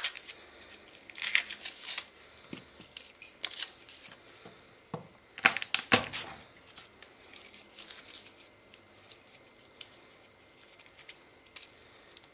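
Dry, papery garlic skin crackling and tearing as a clove is cut from the head and peeled with a kitchen knife, in several short bursts, with a knock on the wooden cutting board about six seconds in.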